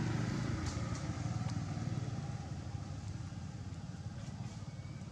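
Engine of a passing motor vehicle running steadily, its pitch sliding down and its level slowly fading as it moves away.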